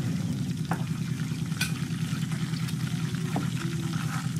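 Flour-coated frogs frying in hot oil in a steel wok: a steady dense crackling sizzle, with a few sharper pops.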